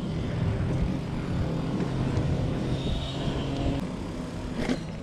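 Mountain bike tyres rolling on a concrete path, a steady low rumble with wind on the microphone, and a faint high hiss near the middle.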